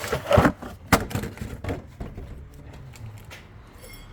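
A handful of sharp knocks and scrapes from handling the air filter and its plastic airbox. They are loudest in the first two seconds and fade to quieter rustling.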